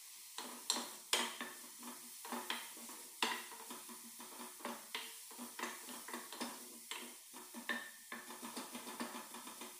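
Wooden spoon stirring onions frying in oil in a pot, with many irregular scrapes and knocks against the pot from about half a second in, over a faint sizzle.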